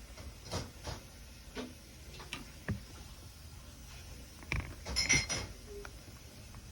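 Scattered clicks, knocks and clinks of small hard objects being handled, with a louder cluster of ringing clinks about five seconds in.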